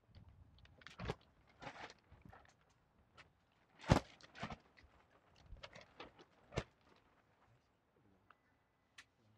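Scattered knocks, taps and brief rustles as a metal chalice and small altar dishes are handled and set down on the altar table, with the loudest knock about four seconds in.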